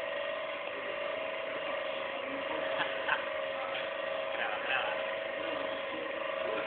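Materials-testing machine with two facing metal discs running, its motor giving a steady whine, with a couple of light clicks about three seconds in.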